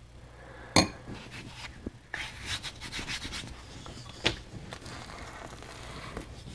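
Silicone spatula scraping sticky bread dough out of a stainless steel mixing bowl, with two sharp knocks, one just under a second in and one a little after four seconds.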